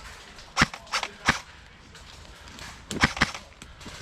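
Airsoft guns firing single sharp shots, about three in quick succession and then another short group of two or three near the end.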